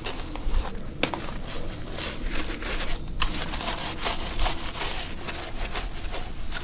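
Round hand-held bristle brush scrubbing a soapy fiberglass boat hull, a rubbing sound in repeated back-and-forth strokes.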